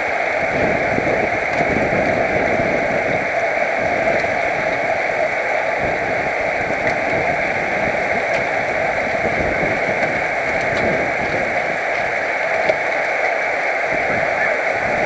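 Wind rushing over a helmet-mounted camera's microphone on a road bike at race speed: a steady hiss with uneven low buffeting.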